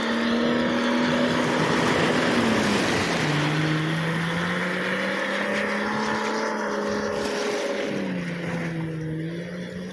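Motorboat engine running, its pitch dropping about three seconds in and rising again near the end, over a hiss of wind and surf.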